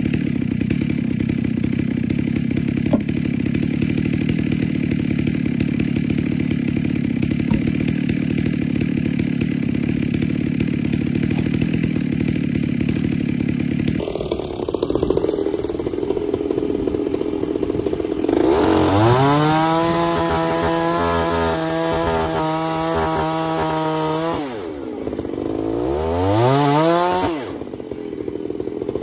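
Two-stroke chainsaw running at idle, then revved to full throttle and held high for about six seconds before dropping back. Near the end it gets a second, shorter rev.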